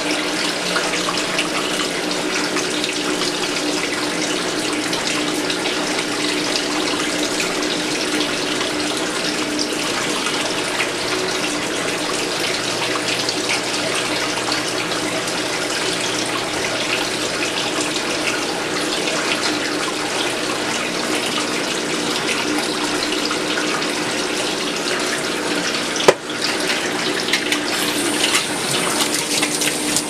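Water running steadily in the wash tub of a Kuppet twin-tub portable washer, with a steady low hum beneath it. A single sharp click comes near the end, after which the sound turns louder and more uneven.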